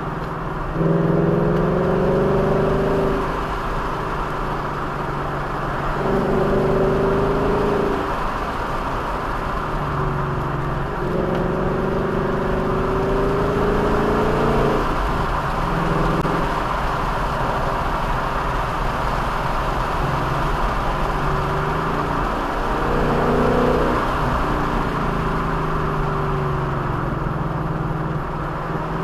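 A vehicle engine accelerating again and again, its pitch climbing for a few seconds each time before it drops away as the throttle eases, over a steady rush of road and wind noise.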